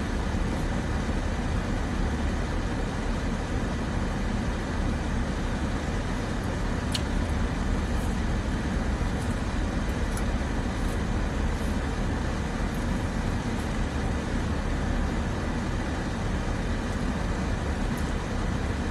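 Steady low rumble and hiss of a car idling, heard from inside the cabin, with a few faint clicks over it.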